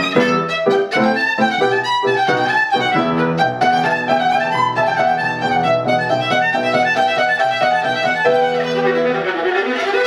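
Viola played with the bow: a continuous legato melody of sustained notes moving from pitch to pitch, some reaching down into the instrument's low register.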